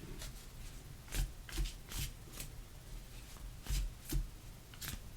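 Tarot cards being handled: a series of separate sharp card flicks and taps, about seven spread unevenly across a few seconds, as cards are pulled from the deck and laid out.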